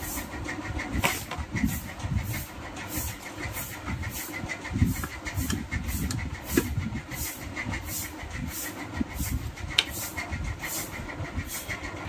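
A screwdriver working the screws and a wooden chassis plate, giving a few sharp clicks and knocks as an amplifier board is freed from a home theatre cabinet. Under them runs a steady mechanical background hum with a regular pulsing.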